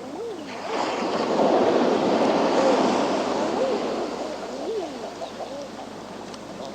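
Sea waves surging against a rocky shore, swelling up about a second in and washing back down a few seconds later. Over the waves come short calls from seabirds, about five of them, each one rising and then falling in pitch.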